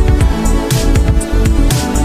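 Background electronic music with a steady beat: deep bass hits and sharp high percussion strikes about twice a second over sustained synth tones.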